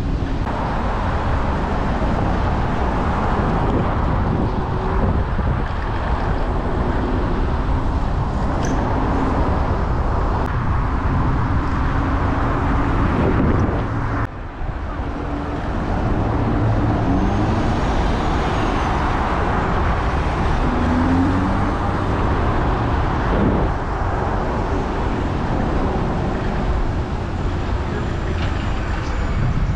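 Wind buffeting the microphone of a moving camera over steady city street traffic, with cars running close by.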